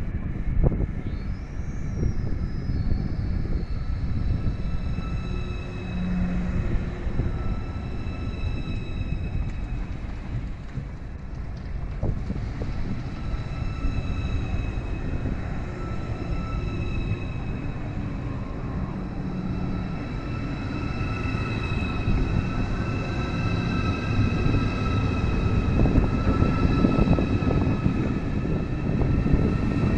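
Deutsche Bahn ICE electric high-speed train rolling along the platform: the traction drive's whine, several steady high tones with a short rising one about a second in, over the rumble of the wheels on the rails. It gets louder near the end.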